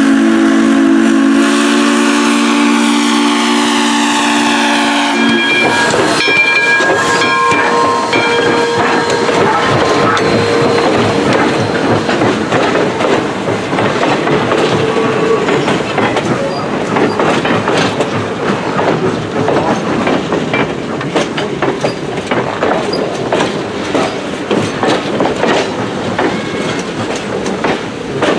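A JS-class steam locomotive's whistle blows a long blast that cuts off about five seconds in. After it, the passenger cars roll past with the clickety-clack of wheels over the rail joints.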